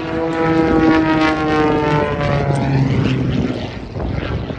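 Single-engine propeller aerobatic plane in flight: a loud engine-and-propeller drone that glides slowly lower in pitch over the first two seconds or so, then settles into a lower hum and dips in level near the end.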